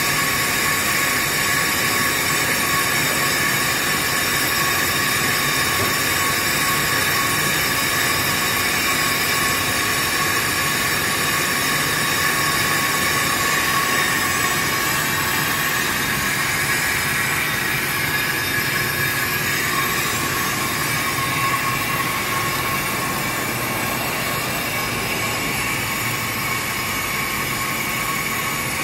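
Pro-Cut on-car brake lathe running, spinning a Ford F-250's front brake rotor while its cutting head resurfaces the disc. A steady whine over an even hiss holds unchanged throughout.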